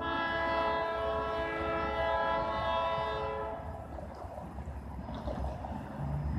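Multi-note air horn of a GE B23-7 diesel locomotive sounding one long blast, a steady chord that holds for about three and a half seconds and then fades out, as the train approaches a street grade crossing.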